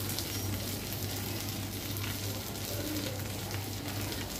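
Spice-coated climbing perch (koi) sizzling steadily as they fry in mustard oil in an open pan, with a fine crackle and a steady low hum underneath.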